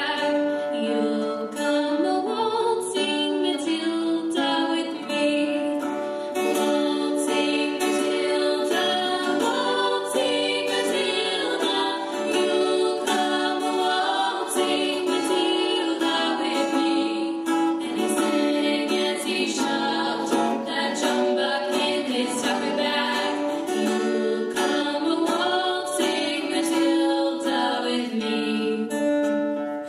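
Girls' vocal trio singing with a strummed acoustic guitar, some notes held for a second or more.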